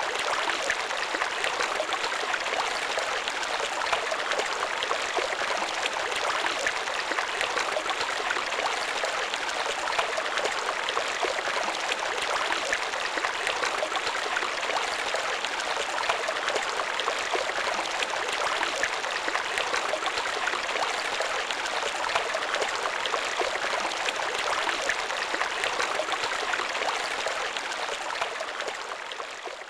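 Steady rushing of running water, like a stream, beginning to fade out near the end.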